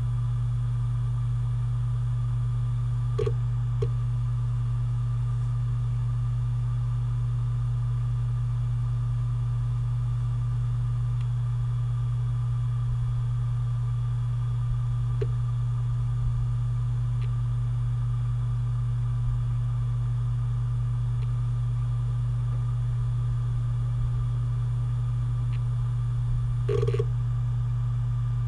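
Seagate Barracuda 7200.7 3.5-inch 7,200 RPM hard drive running at full speed with a steady hum, broken by a few faint clicks.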